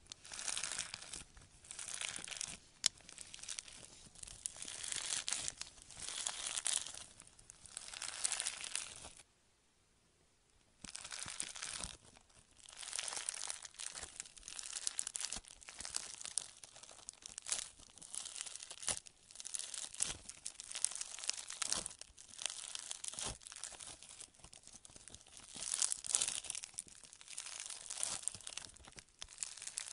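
White foam-bead slime squeezed, kneaded and pulled apart by hand, the beads crackling and crunching in repeated surges with sharp clicks. There is a short pause about nine seconds in.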